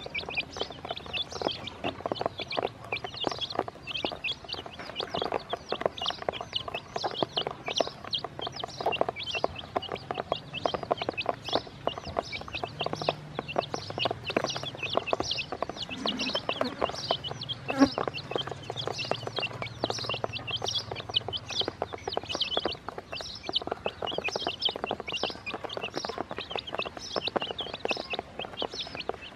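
A brood of chicks peeping nonstop, many short, high, falling peeps overlapping, with quick taps of beaks pecking feed off the plastic basin.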